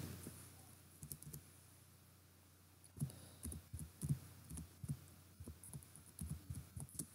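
Faint computer keyboard typing: a couple of keystrokes about a second in, then a run of key presses with soft low knocks from about three seconds in until shortly before the end.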